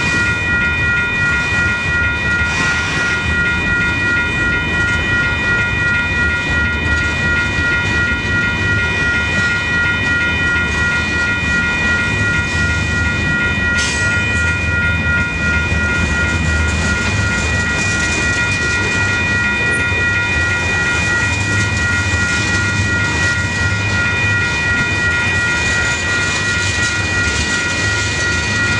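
Freight cars rolling through a railroad grade crossing: a steady low rumble with wheels clicking over the rail joints, and one sharp clank about 14 seconds in. Over it, the crossing's WCH electronic bells ring continuously while the gates are down.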